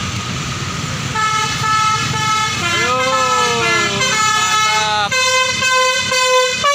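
Tour bus telolet basuri multi-tone horn playing a tune over the bus engine. It starts about a second in, slides up and down in pitch in the middle, then steps between short held notes near the end.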